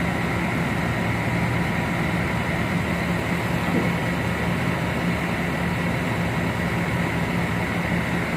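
Heavy diesel engine running steadily, a continuous even drone with a steady hum.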